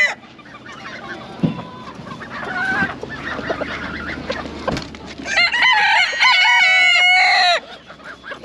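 A rooster crowing once, starting about five seconds in: a loud crow of more than two seconds that steps up and down in pitch. Before it, chickens are clucking more quietly.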